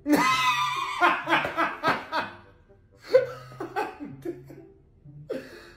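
A young man laughing loudly and aggressively on purpose, in rapid pulsing 'ha-ha' bursts that break off and start again twice.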